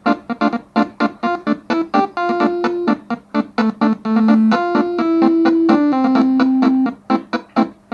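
A 12-note basuri telolet bus-horn melody played back from a MIDI file in a piano-like keyboard sound: quick staccato notes in a bouncing rhythm, with a few longer held notes in the middle.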